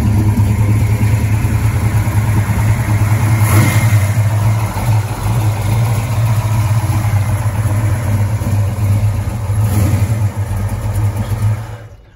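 Naturally aspirated, carbureted V8 of a Fox-body Mustang idling loudly and steadily, with brief swells about three and a half seconds in and again near ten seconds.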